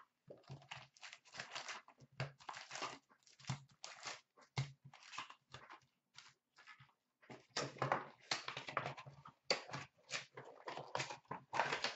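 A hockey card box being torn open and its foil card packs handled: a quick, irregular run of crinkling, rustling and tearing noises, busiest in the second half.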